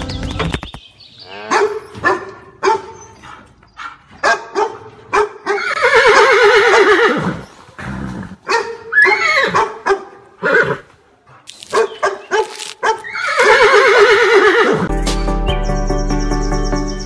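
A horse whinnying twice, each call long and wavering, with short dog barks between the calls. Music starts again near the end.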